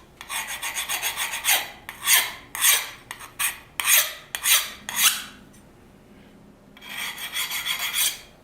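Steel file skating over the freshly quenched knife blade in a file-hardness test: repeated rasping strokes, about two a second, that skid across rather than bite, the sign that the steel has hardened. After a short pause about five seconds in, a quicker run of short strokes.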